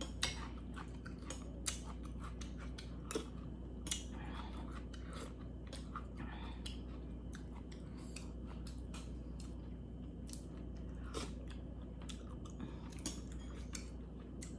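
A person chewing mouthfuls of creamy chicken soup with pasta close to the microphone, with wet mouth clicks throughout. Several sharper clicks stand out in the first four seconds and once near the end, over a steady low hum.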